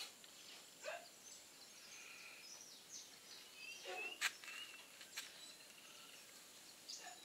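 Faint outdoor ambience with scattered short bird chirps and calls, a brief lower call about four seconds in, and a couple of sharp clicks soon after.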